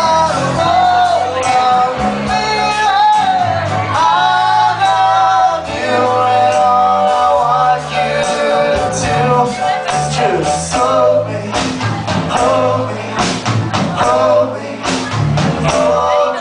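Live rock band playing a song, with piano, drums and singing.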